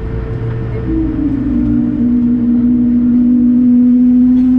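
Cabin noise of an Airbus A220-300 on the runway: its Pratt & Whitney geared turbofan engines drone under a low rumble, with a loud steady hum that dips in pitch about a second in and holds. The sound grows a little louder about two seconds in.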